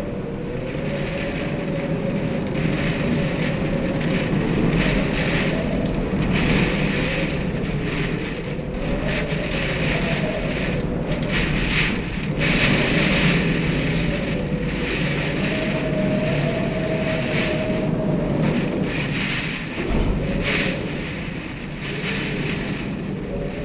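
Typhoon wind and rain: strong gusting wind with rain, and a whistling tone that wavers up and down in pitch as the gusts rise and fall.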